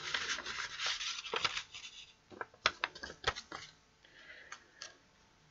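Paper rustling as a small paper envelope is handled and fingers rummage among folded paper slips inside to draw one out, with a few light clicks; the rustle dies away about halfway through.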